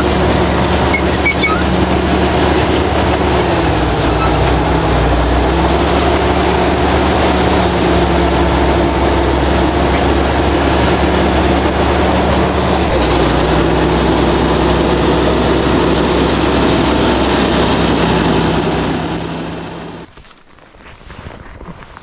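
Caterpillar crawler bulldozer's diesel engine running steadily, a loud low drone with a steady hum. The sound shifts about halfway through and fades out near the end.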